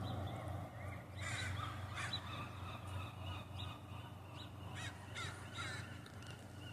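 Birds calling: a series of short caw-like calls, several in a row, faint over a steady low hum.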